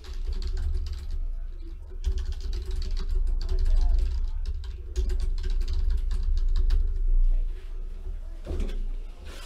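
Quick light clicks and crackling from handling at a desk, over a steady low hum.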